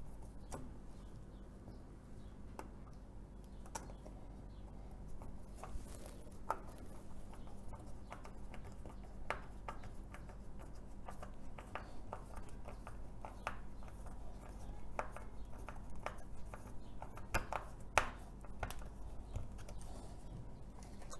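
Faint, irregular clicks and ticks of a hand screwdriver turning a small screw into a wooden base, over a steady low hum.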